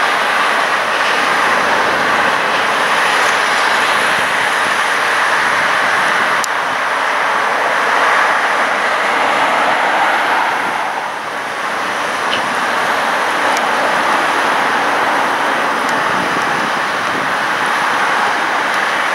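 Heavy excavator diesel engines and hydraulics running steadily under load, a continuous machinery din that dips briefly about eleven seconds in.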